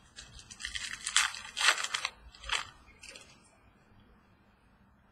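Trading cards and packaging being handled, rustling and scraping in a few short bursts over the first three seconds, then quieter.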